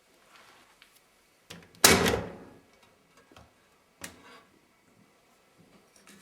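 Washing machine door being unlatched and opened: a loud clunk a little under two seconds in that fades over about half a second, with a click just before it and two lighter clicks after.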